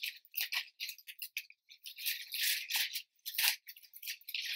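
Plastic shopping bag rustling and crinkling in irregular bursts as hands rummage through it.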